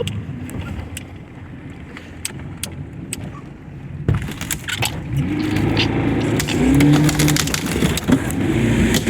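Evinrude 85 two-stroke outboard motor running, low and steady at first. About four seconds in it gets louder, and its pitch then rises and dips several times as the throttle is worked.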